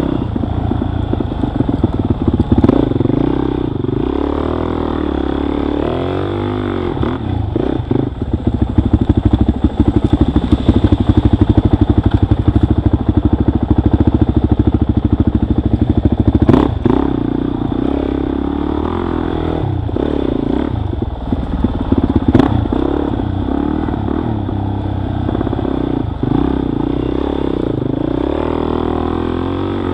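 Dirt bike engine running under load as it is ridden over a rough trail, the throttle rising and falling, louder for several seconds in the middle. A couple of sharp knocks come from the bike over bumps.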